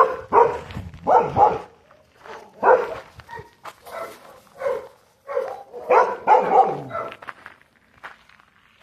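Dogs barking: a run of short barks in clusters, thinning out to faint scuffs near the end.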